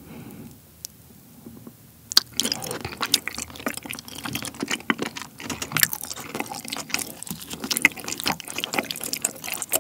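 Close-up wet eating sounds of kiri mochi rice cake in a thick cream sauce: soft chewing at first, then from about two seconds in a dense run of sticky, wet clicks and squelches as the mochi is chewed and chopsticks pick through the sauce.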